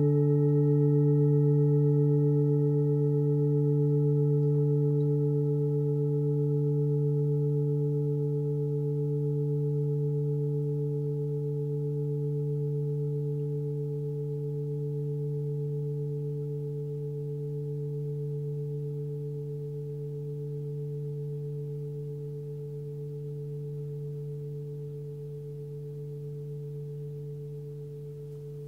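26 cm forged Sun Moon singing bowl with a fundamental of about 146 Hz (D), ringing out after a strike. Its deep tone and a few higher overtones hang steadily and slowly fade, with a gentle slow pulsing waver; the highest overtones die away first.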